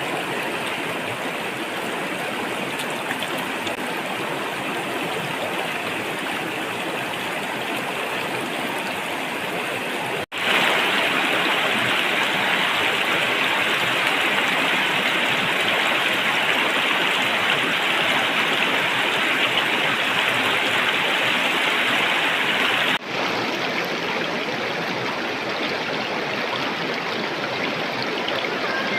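Steady rushing of flowing stream water. It jumps louder about a third of the way in and drops back to the earlier level with an abrupt cut near the end.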